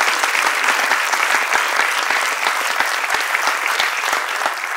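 A large seated audience applauding: many hands clapping together in a steady, dense patter.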